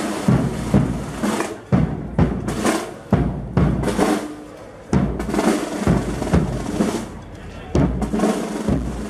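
Procession band's drums, bass drum and snare, beating a march cadence: repeated strikes about two a second, with snare rolls between them.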